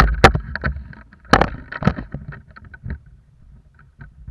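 A series of sharp knocks and clacks: several loud ones in the first two seconds, a softer one about three seconds in, then only faint low clatter.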